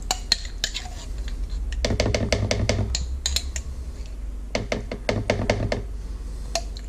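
Metal spoon scraping and clinking against the inside of a glass jar of pesto, in quick runs of clicks.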